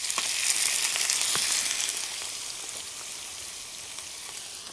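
Clams going into a pan of hot oil and fried garlic: a sudden loud sizzle, loudest for the first couple of seconds, then settling to a steady frying sizzle with small pops.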